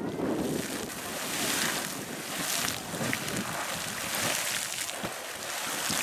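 Sawmill Geyser, a fountain-type geyser, erupting: a continuous rushing splash of water thrown up in overlapping spikes that falls back into its pool, rising and falling in irregular surges.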